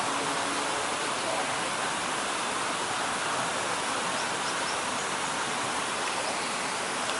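Steady rush of running water, like a small waterfall, at an even level. A few faint, short high chirps sound over it in the second half.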